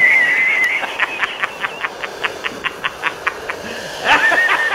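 Dog giving high-pitched whining cries: a wavering cry at the start and a rising cry about four seconds in. Between them comes a fast run of short, high chirps, about eight a second.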